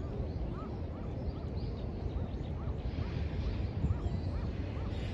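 A bird calling in a steady series of short notes that rise and fall, about two or three a second, with a few fainter high chirps, over a steady low rumble.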